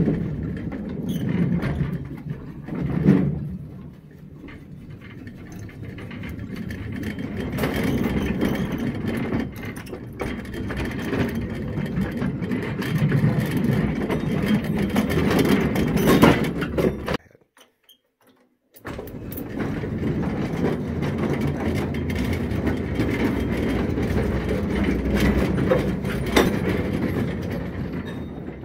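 Vintage Mancha battery-electric mine locomotive running along the underground track: a steady rumble and clatter of its steel wheels on the rails, with small clicks throughout. The sound cuts out for about a second and a half around the middle, then resumes.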